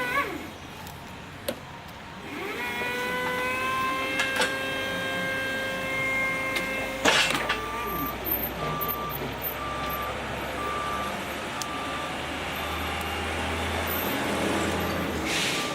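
Engine of the machine stacking the one-ton pallets running, with a whine that rises and then holds level, and a sharp knock about seven seconds in. From about eight seconds in, a reversing alarm beeps about once a second.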